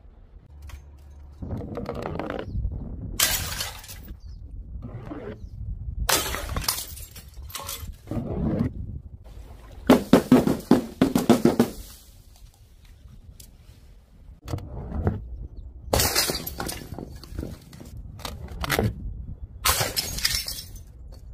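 A run of separate crashes, about ten in all, as objects drop onto stone paving and smash. Among them are glass jars of coloured powder shattering. The loudest is a longer clattering burst about halfway through.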